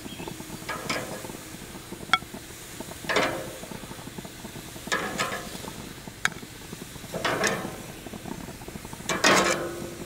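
Metal tongs scraping and clacking on gas-grill grates as grilled watermelon planks are lifted off, in short clatters about every two seconds. Twice there is a sharp, ringing click.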